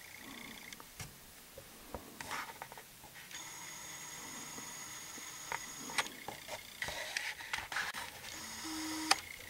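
Handheld camcorder noise: clicks and rustles of the camera being handled, and a high steady whine from the zoom motor. The whine starts and stops abruptly twice, once for about three seconds and again briefly near the end.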